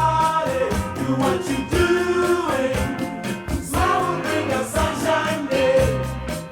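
Song playing back from a CD: a lead voice singing over a band with a steady beat.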